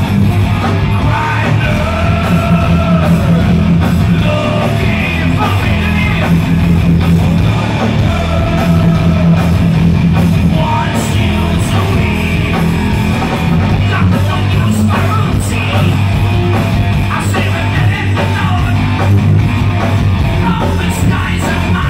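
Heavy metal band playing live: a male singer's sustained, wavering sung lines over distorted electric guitar, bass guitar and drums, with a heavy low end.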